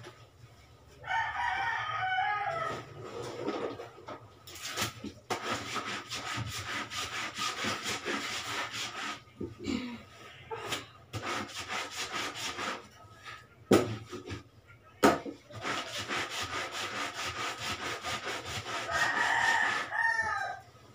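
Wet laundry being hand-scrubbed: soapy cloth rubbed between the hands and scrubbed with a brush on a board, in quick, steady strokes. A rooster crows twice, about a second in and near the end, and there are two sharp knocks midway.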